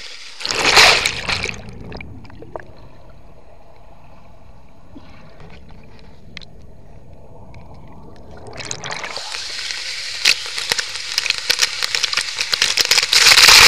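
Creek water in a rock plunge pool under a small waterfall: a splash about a second in, then several seconds of muffled churning with the camera under the water, then about nine seconds in loud rushing and bubbling of the cascade pouring into the hole, growing louder near the end.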